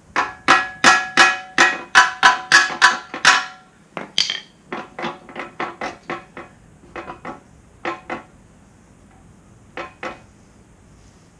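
Hammer striking a steel backhoe quick-connect coupler to drive it into place: a quick run of about a dozen loud, ringing metal-on-metal blows, then lighter, sparser taps, and two more near the end.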